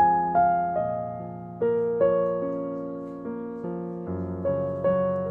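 Background piano music: slow, gentle notes and chords, each struck and then fading away.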